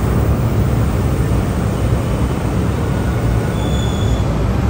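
LRT-1 light rail train moving along the station platform: a steady low rumble of wheels on rails, with a brief high squeal about three and a half seconds in.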